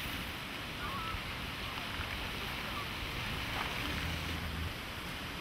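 Steady outdoor background noise, like wind on the microphone, with a few faint high chirps in the first half and a brief low hum about four seconds in.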